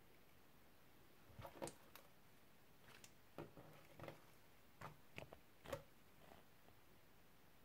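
Faint squishes and sticky crackles of clear slime, mixed with lip balm, being stretched and folded by hand, in a handful of short clusters.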